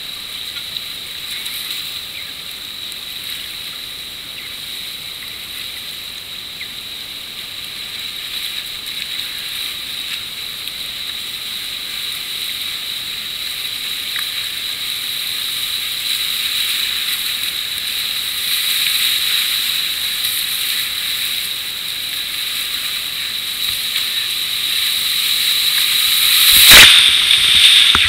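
Whitewater rapids rushing around a kayak, a steady hiss that grows louder as the boat runs into rougher water, with one loud splash near the end. A thin, steady high-pitched tone runs under the water noise.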